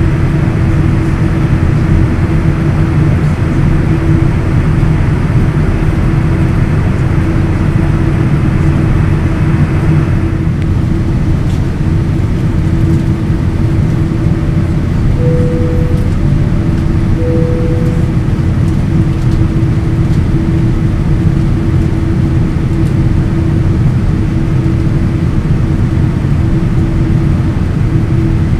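Boeing 787-9 airliner taxiing, heard from a cabin window seat: a steady rumble of engines and rolling gear with a constant low hum. Two short beeps sound about halfway through.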